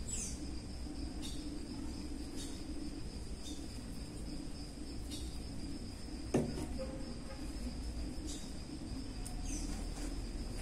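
Steady high insect trill, cricket-like, over a low background hum, with one short knock about six seconds in.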